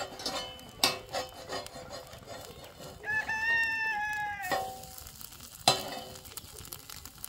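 A metal spatula scrapes and taps on a round iron griddle as an egg fries over a wood fire, with a sharp clack a little before the end. About three seconds in, a rooster crows once, a call of about a second and a half.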